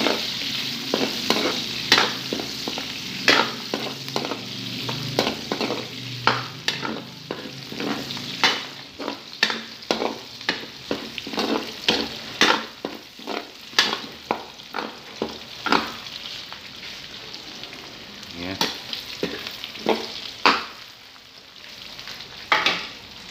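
Garlic and onion sizzling in hot oil in a wok while a metal ladle stirs them, scraping and clacking against the pan in quick, irregular strokes. The stirring stops near the end, leaving a fainter sizzle.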